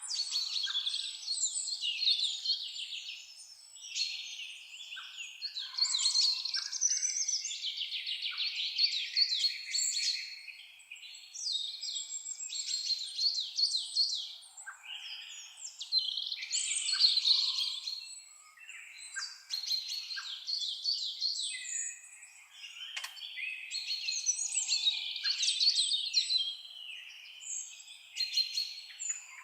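Songbirds singing: busy phrases of rapid chirps and trills, high in pitch, coming in bursts every few seconds with short pauses between them.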